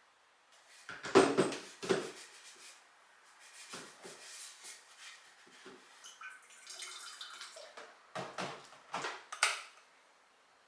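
Kitchen items being handled and set down: a series of knocks and clinks, loudest about a second in and again near nine seconds, with lighter rattling in between.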